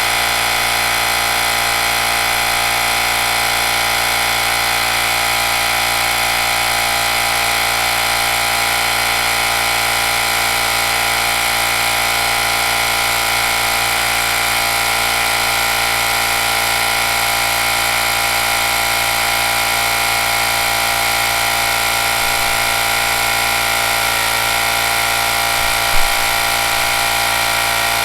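Small portable electric air compressor running steadily as it inflates a freshly plugged motorcycle tire, with a brief knock near the end.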